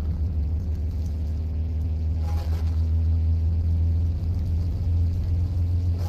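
Bass-boosted, distorted train-horn recording: a loud, steady low rumble with faint horn tones above it and a brief higher tone about two seconds in.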